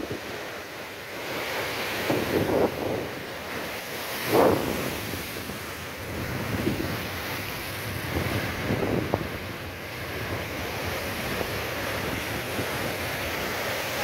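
High storm waves on the Mediterranean crashing and washing over breakwater rocks, with wind buffeting the microphone. The surf swells and falls in surges, the loudest about four seconds in.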